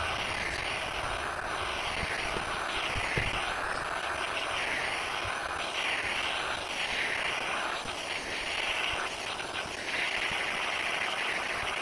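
Small handheld butane torch hissing steadily as its flame heats a knife blade to detemper it, the hiss swelling and fading about once a second.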